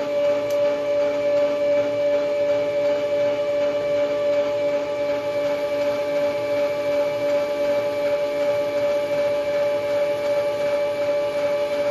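Metal lathe running, giving a steady whine that holds one pitch without change.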